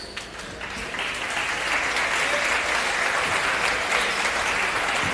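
Crowd applauding in a gymnasium, building up about a second in and then holding as steady clapping.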